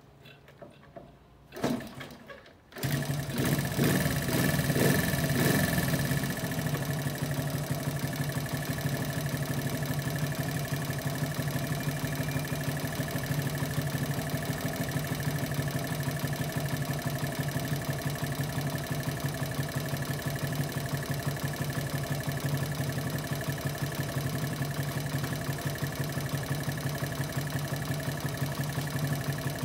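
1971 Honda CL70's single-cylinder four-stroke engine being kick-started: a couple of sharp kicks, then it catches about three seconds in, runs louder for a few seconds and settles into a steady idle.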